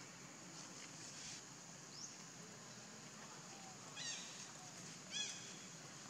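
Baby macaque giving two short, high-pitched squeaks about a second apart, over a faint outdoor background.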